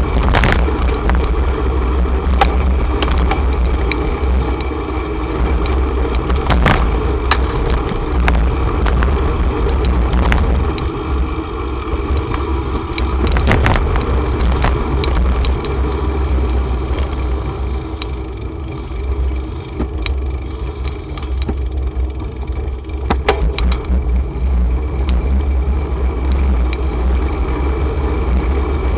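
Riding a bicycle in city traffic, heard through a cyclist's camera microphone: a steady low rumble of wind and road with sharp rattles and clicks from bumps every few seconds, and cars passing.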